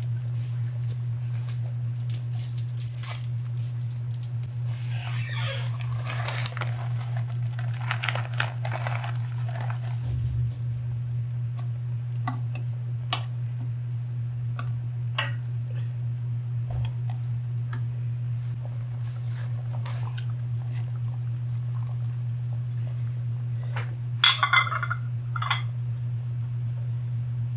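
Kitchen sounds at a pot of simmering beef-shank broth: a steady low hum under scattered small clicks and patter. Near the end come a short cluster of louder splashes and knocks as sliced onions are dropped into the broth.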